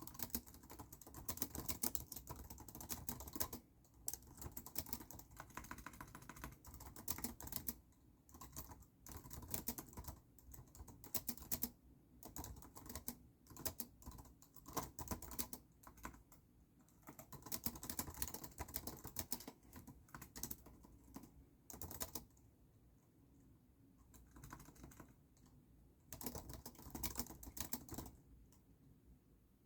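Typing on a computer keyboard: runs of quick keystrokes broken by short pauses, with a longer pause a little over two thirds of the way in, one more short burst, then the typing stops near the end.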